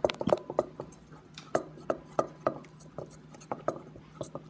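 Spoon clinking against a bowl while stirring glue and food dye together, with irregular taps about three times a second.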